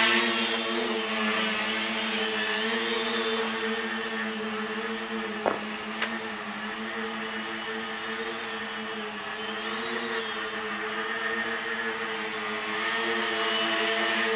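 Tricopter's three motors and propellers flying, a steady buzzing drone that wavers slightly in pitch, louder when the craft is near at the start and again near the end. Two short sharp clicks about five and a half and six seconds in.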